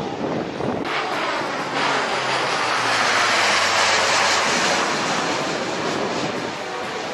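Blue Angels C-130J Super Hercules "Fat Albert" flying low overhead, its four turboprop engines droning with a low propeller hum underneath. The noise swells to its loudest a few seconds in, then fades as it passes.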